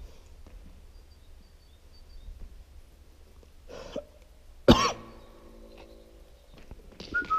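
A person's cough, loud and sudden about two-thirds of the way through, ringing on briefly in the tunnel's echo; a softer cough-like sound comes just before it and another near the end.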